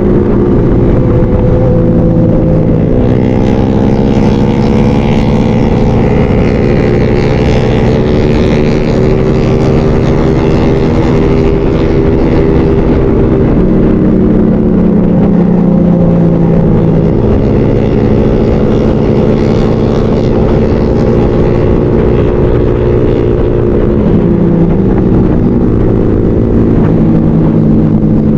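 Motorcycle engine running while riding, its pitch gliding up and down with the throttle and dropping abruptly a few times, over a steady rushing noise.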